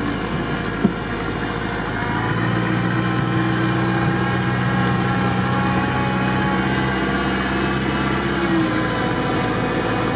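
Off-road vehicle's engine pulling under load through deep swamp, heard from inside the cab; it works harder from about two seconds in and eases off near the end. A high whine rises in pitch and holds above the engine.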